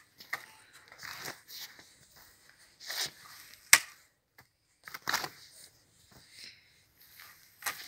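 Steel spade being driven into and levering up soil: a series of scraping, crunching strokes a second or two apart, with one sharp click about halfway through.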